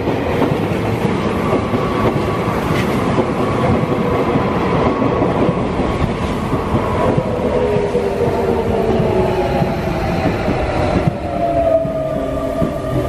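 Sotetsu electric commuter train pulling into the platform: a loud rumble of wheels on the rails with some clacking, then from about halfway a whine from its motors falling steadily in pitch as it brakes.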